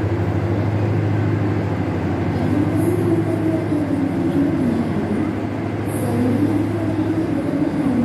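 Steady low diesel hum from a stationary passenger train idling at the platform.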